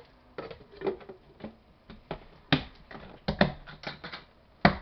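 Hands handling a plastic bucket of latex and a plaster mold: a run of irregular clicks and knocks, the loudest just before the end.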